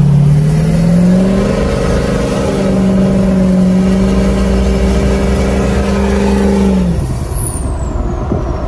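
Pickup truck engine heard from inside the cab while driving on a highway: the engine note climbs over the first second, holds steady under load, then falls away about seven seconds in as the throttle is let off. A thin high whine rises early and sweeps down after the lift-off.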